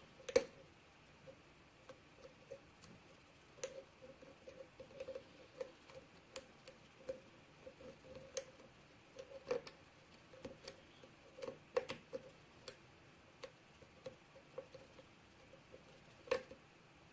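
Lock pick working the pin stacks of a 7-pin pin-tumbler lock loaded with security pins: irregular small metallic clicks and taps as the pick lifts pins under tension.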